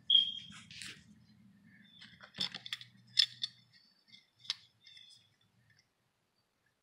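A metal blade tapping and scraping on a hard floor: a brief squeak, then a run of sharp clicks and scrapes, loudest near the start and about three seconds in, dying away in the last second or so. A faint low hum sits under the first half.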